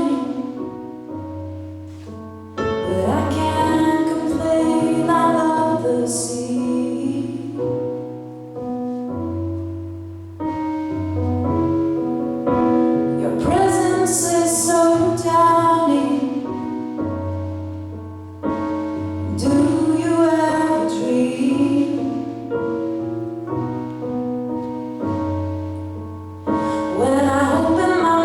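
A woman singing a slow pop ballad with piano accompaniment. Sung phrases come and go over held piano chords and deep bass notes, with piano-only stretches between them.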